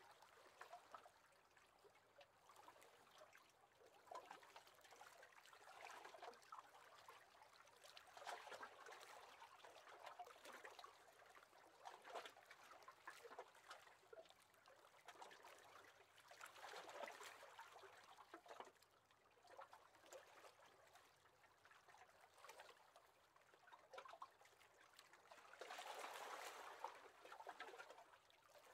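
Faint small waves lapping against the hull of a wooden rowing boat, coming in soft irregular swells every few seconds.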